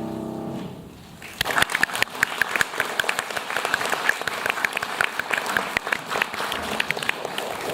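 The last sustained chord of the piece dies away, and about a second and a half in the audience starts applauding, a dense steady clapping that carries on.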